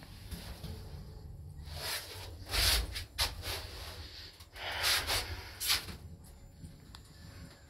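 Lift car travelling down, with a steady low rumble. Two loud breathy hissing bursts come about two seconds and five seconds in.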